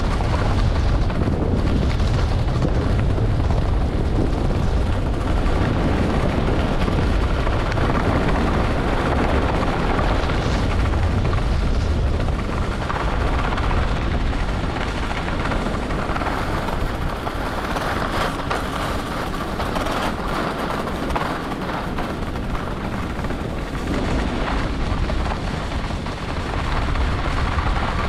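Wind rushing over the microphone of a camera moving fast down a ski run, a steady low rumble, with the hiss and scrape of edges sliding on groomed snow underneath; it eases a little midway.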